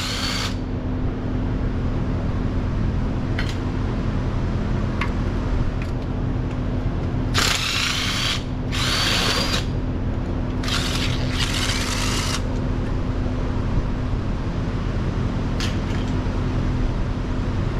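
Power impact gun running in four short bursts, each about half a second to a second, over a steady low hum.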